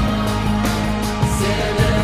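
Slowed-down, reverb-heavy pop song with a steady beat, held synth and bass notes, and faint singing.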